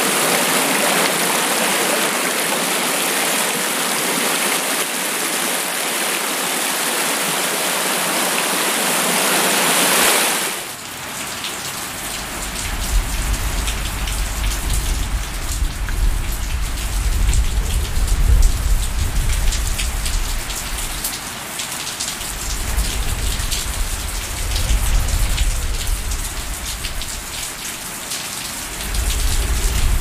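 Steady rush of a waterfall for about the first ten seconds, cutting abruptly to rain falling on leaves, heard as many fine separate drops. Patches of low rumbling come and go under the rain.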